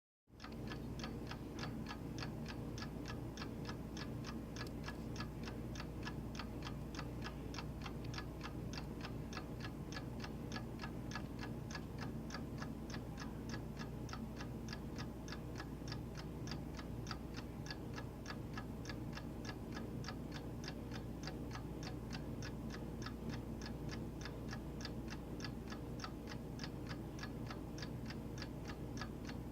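A clock ticking, an even, steady run of sharp ticks several times a second, over a low steady hum.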